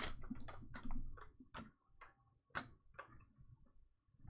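A dozen or so light clicks and taps, sparse and irregular, thinning out after about a second with a few more later.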